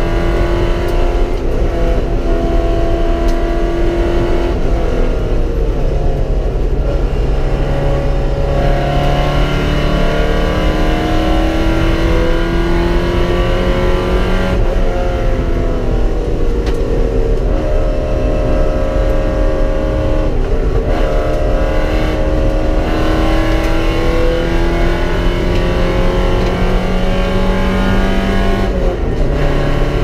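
Porsche 944 race car's four-cylinder engine running hard under load, heard from inside the cabin. Its pitch climbs slowly for several seconds at a time and drops sharply about four times.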